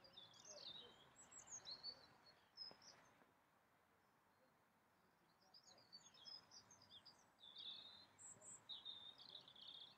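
Faint birdsong: several birds chirping, with a short lull about halfway through before the chirping picks up again.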